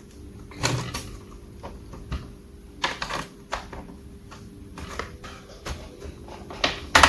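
Scattered clicks and knocks of hand tools and laptop parts being handled, with the loudest knock near the end.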